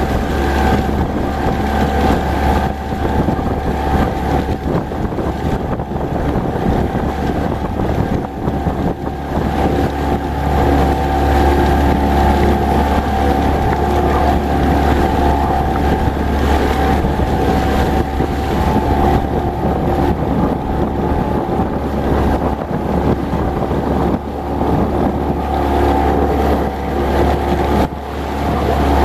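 Motorboat engine running steadily at an even pitch, with wind buffeting the microphone.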